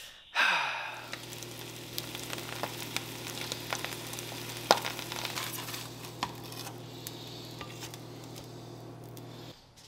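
Eggs frying in oil in a nonstick skillet, sizzling and crackling steadily, with a sharp click about halfway through and a steady low hum underneath. The sound cuts off just before the end.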